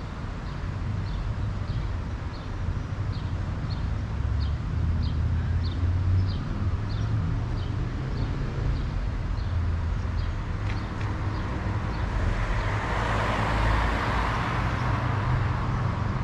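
Steady low rumble of a vehicle running, with a swell of louder noise from about twelve to fifteen seconds in. Faint high chirps repeat about twice a second through the first part.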